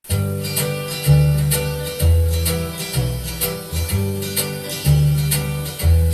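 Instrumental country-style backing music starting up: guitar over alternating low bass notes and a steady beat, with no singing yet.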